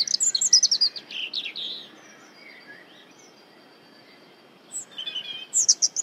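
European robin singing: a phrase of quick, high, varied warbling notes in the first two seconds, then a pause, and a second phrase starting about five seconds in.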